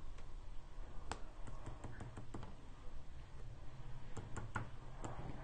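A disc-tipped stylus tapping on a phone's glass touchscreen, dabbing dots: faint, irregular clicks, a few in the first half and a quick cluster near the end.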